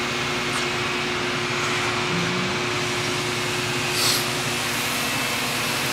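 Steady whirring hum of machinery running without cutting, with a brief hiss about four seconds in.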